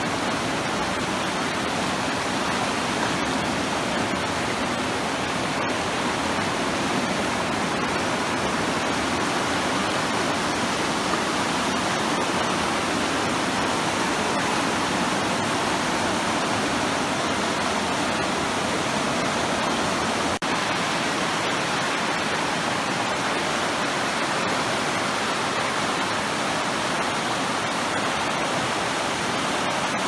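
River rapids: fast water running white over rocks, a steady rushing noise with a momentary dropout about twenty seconds in.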